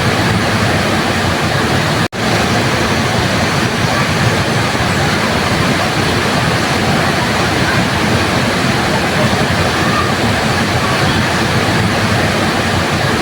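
Waterfall: a steady, dense rush of falling water, broken by a sudden momentary dropout about two seconds in.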